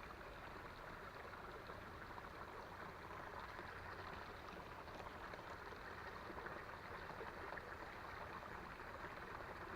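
Faint, steady rush of a small creek's flowing water.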